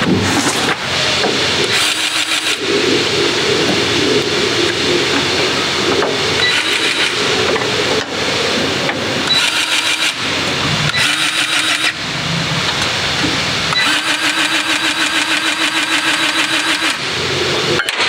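Cordless battery-powered grease gun running in several bursts, its motor-driven pump pulsing fast and evenly as it pushes grease into the grease fittings.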